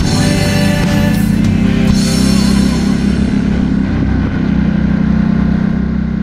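Rock music with drums and a steady low drone, its upper range thinning out over the last few seconds.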